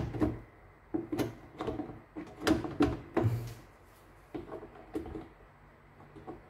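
Irregular plastic knocks and clicks from the bread maker's plastic control-panel housing being pushed and pried into place against its metal body.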